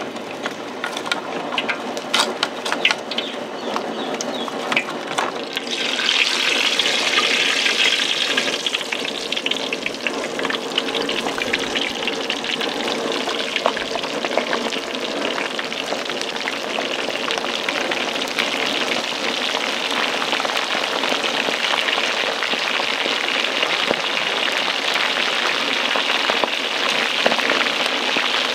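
Food frying in hot oil: a dense, steady sizzle that starts suddenly about six seconds in, with scattered clicks and clatter before it.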